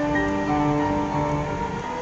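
Background music with a melody of held notes that change every half second or so.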